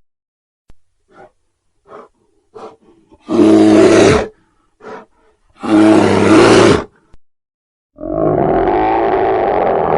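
Bear vocalising: a few short, faint grunts, then two loud roars about two seconds apart, each about a second long. Near the end a long, steady growl begins.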